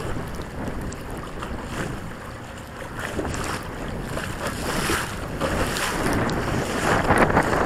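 Water splashing and slapping against a Hobie Pro kayak's hull as it pushes through choppy waves, in irregular surges that grow louder in the second half, with wind buffeting the microphone.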